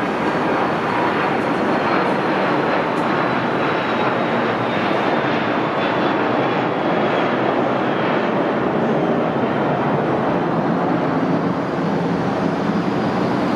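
Twin Pratt & Whitney Canada PW306D1 turbofans of a Cessna 680A Citation Latitude at climb power just after takeoff: a steady, loud rushing jet noise with a thin high whine that slowly falls in pitch as the jet climbs away.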